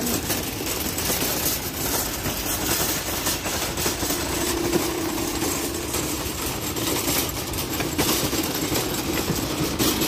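Metal shopping cart rolling over a brick-paver crosswalk, its wheels and wire basket rattling steadily.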